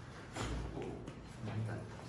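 Chiropractic side-lying low-back adjustment: the thrust lands with a thud and a crack of the joints about half a second in, as the patient breathes out. A second, lower sound follows about a second later.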